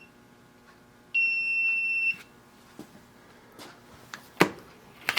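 Digital readout on a milling machine giving one steady, high-pitched electronic beep about a second long, starting a little over a second in. A few light clicks follow near the end.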